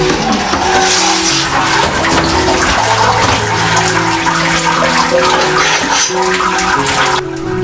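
Wort pouring out through the perforated bottom of a stainless grain basket as it is lifted out of the mash kettle. It is a steady rush of liquid that drains the grain bed at the end of the mash, and it cuts off suddenly near the end. Background music with held notes plays throughout.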